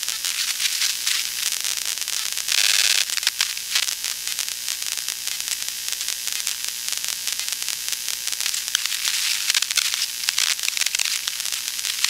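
Wi-Fi emissions from a smartphone, picked up by a Heliognosis AR1 VLF receiver and played through its speaker as digital hash: a steady hiss full of rapid crackling clicks, with a louder surge of hiss about two and a half seconds in.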